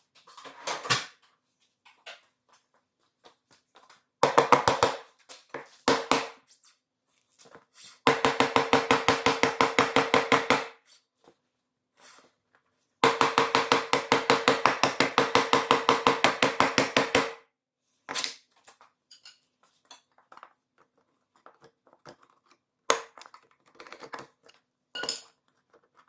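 A cordless power tool runs in four bursts, the longer two about three and four seconds, with a fast even pulsing over a steady hum, backing off the nuts on a three-wheeler's front hub. Short metallic clanks of parts being handled come before and after.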